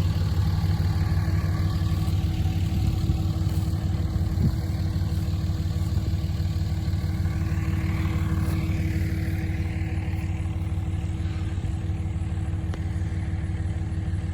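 Motor vehicle engine running steadily at an even, low pitch.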